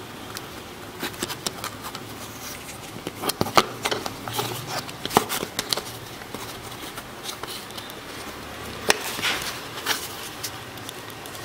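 Black plastic credit-card folding knife being folded into shape by hand: a run of irregular sharp plastic clicks and snaps with handling rustle, the loudest few a few seconds in and near the end.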